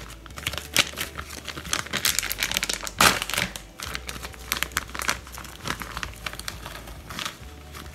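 Plastic packet of grated mozzarella crinkling as it is handled, a run of irregular crackles with a louder one about three seconds in.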